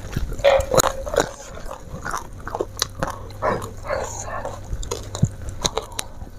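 Close-miked chewing of a mouthful of raw vegetables and rice, with wet lip-smacking and irregular clicks as the food is worked in the mouth.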